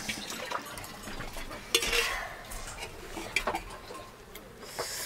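Metal dishes and utensils clinking and scraping: about four sharp clinks spread out, with a scrape between them near the middle.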